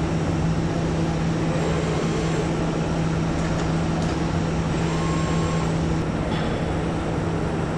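Steady drone of automated assembly-line machinery on a factory floor, a constant low hum under a hiss, with a few faint clicks from the line's pneumatic grippers and fixtures.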